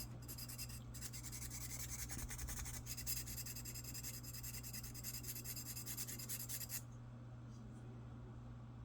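Sandpaper wrapped around a wooden dowel rubbed rapidly back and forth on a metal lock-pick rake, a fast scratchy rasping that stops about seven seconds in. It is sanding down a rough nub left from manufacture. A steady low hum runs underneath.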